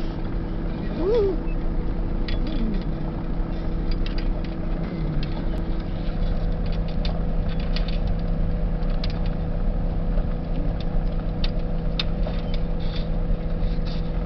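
Car engine idling steadily. Rat terriers whine a few times in the first five seconds, with scattered faint ticks throughout.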